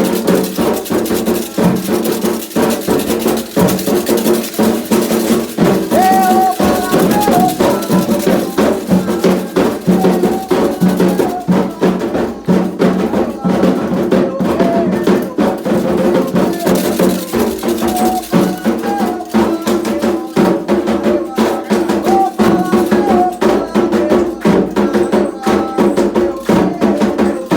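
Candomblé ritual drumming on atabaque hand drums in a fast, steady rhythm, with shaken rattles and a struck wooden or metal bell. A chanted song rises over the drums now and then.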